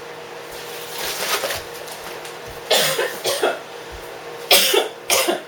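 A person coughing, several short coughs over a few seconds.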